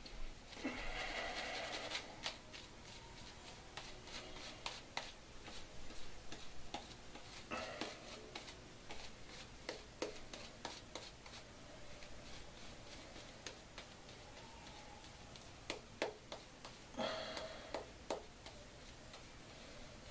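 Silver-tip shaving brush working lather onto a bearded face and neck: faint soft scrubbing, strongest near the start, about eight seconds in and again near the end, with scattered small clicks.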